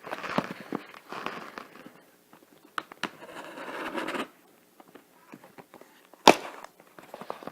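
A repair kit's packaging being handled and opened: rustling and crinkling in bouts, then one sharp snap about six seconds in.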